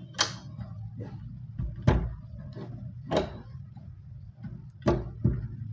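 Wooden cabinet door pushed shut against its lock again and again: about five sharp knocks, a second or so apart, as the lock is tested to see whether it catches. A steady low hum lies underneath.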